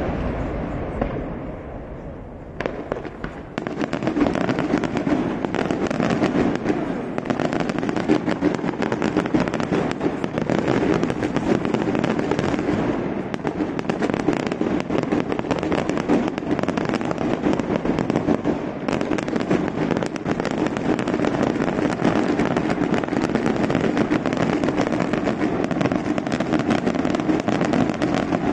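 Daytime fireworks: a big burst fades over the first couple of seconds, then about three seconds in a dense, continuous rattle of rapid small bangs starts and keeps going without a break.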